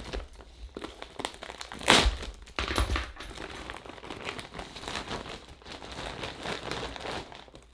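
Large clear plastic bag crinkling and rustling as it is pulled open and handled, with sharp crackles and the loudest rustle about two seconds in.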